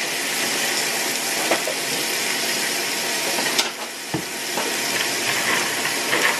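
Water pouring from a bottled-water cooler's spout into a plastic tumbler, a steady hiss of running water, with a few sharp clicks in the middle.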